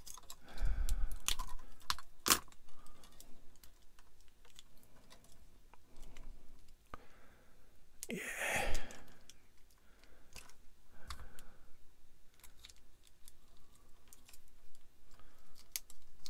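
Hard plastic model kit parts being handled and pressed together: a run of small irregular clicks and taps, with one louder rustle about eight seconds in.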